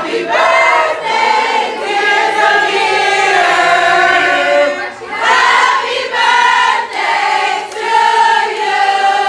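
A crowd of party guests singing together, many voices at once, in phrases with short breaks between them.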